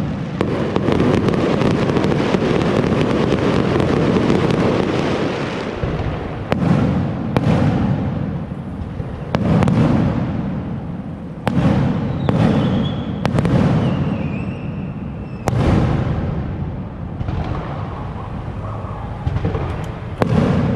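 Aerial firework shells bursting overhead: a dense run of booms and crackle for the first six seconds or so, then separate booms every one to two seconds, each trailing off in a fading rumble.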